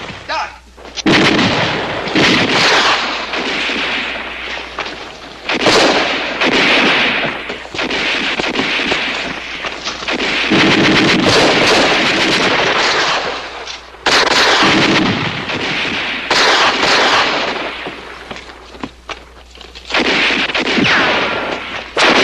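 Gunfire and heavy blasts from a staged WWII street battle, a loud sudden blast every few seconds, each trailing off slowly.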